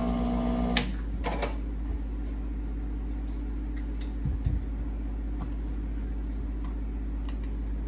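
Rancilio Silvia espresso machine's vibratory pump buzzing briefly, cut off by a switch click under a second in. A couple of soft knocks follow about four seconds in.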